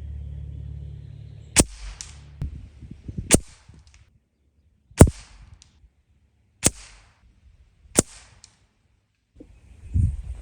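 Five shots from a Gamo Whisper Swarm Mach 1 .22 break-barrel air rifle, about one and a half seconds apart, each a sharp crack with a short tail, and smaller clicks between the first few. A jumble of knocks begins near the end.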